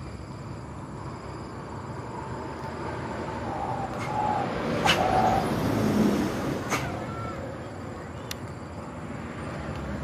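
Road traffic noise: a steady rush of passing vehicles that swells in the middle, with a few sharp clicks and short chirps on top.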